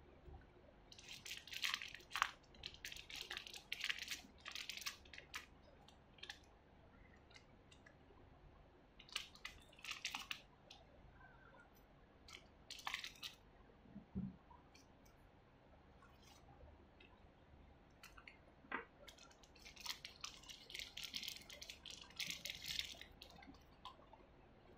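Thin clear plastic packaging crinkling in several bursts as small plastic parts are unwrapped and handled, with one soft knock midway.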